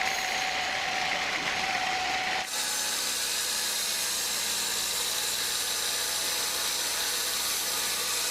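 Sawmill saw running steadily, working on teak. About two and a half seconds in, the sound changes abruptly to a brighter, hissier tone and stays that way.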